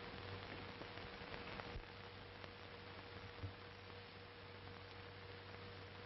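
Steady hiss and hum of a 1930s film soundtrack, with a few faint clicks.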